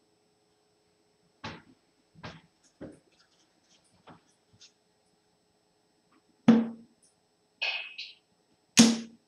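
Steel-tip darts thudding into a Unicorn Eclipse Pro 2 bristle dartboard: three lighter hits in the first three seconds, then two loud thuds near the end with a short rattle between them.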